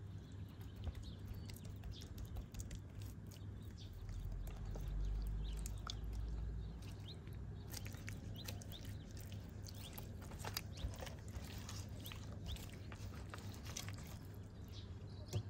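Hands massaging seasoning into raw trout fillets: soft wet squelching and slapping of fingers on slippery fish flesh and skin, with many small irregular clicks. A low rumble swells for a couple of seconds near the middle.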